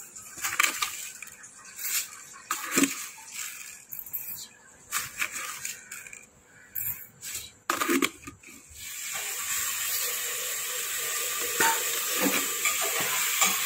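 A spoon clinking against a stainless steel bowl as spoonfuls of granulated sugar are tipped in: a series of separate sharp taps and rattles. From about two-thirds of the way through, a steady hiss with a few light clicks.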